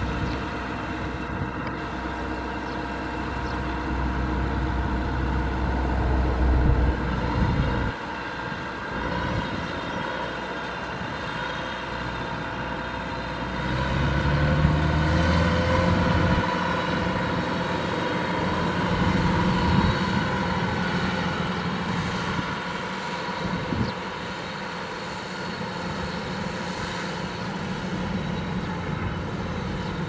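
Kubota DC-105X rice combine harvester's diesel engine running steadily, with the steady whir of its machinery. The deep rumble drops off about a quarter of the way in, and the engine rises in pitch and grows louder around the middle.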